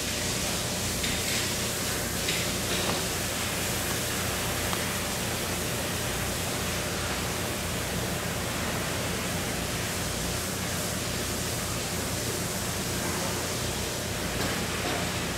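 Steady, even rushing hiss of background noise, with a few faint clicks in the first few seconds.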